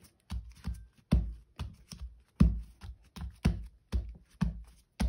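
Hands patting and pressing a glued die-cut paper panel flat onto a cardstock card base on a wooden table: a run of about a dozen dull thumps, two or three a second.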